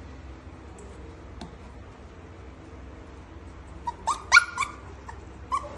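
Golden retriever puppy giving a quick run of about four short, high-pitched whimpering yips near the end, as it scrambles at a stair step it is trying to climb.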